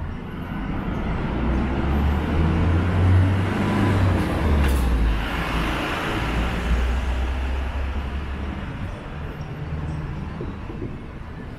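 Motor vehicle passing close on the street: a low engine rumble with road noise that swells to its loudest about three to five seconds in, then slowly fades.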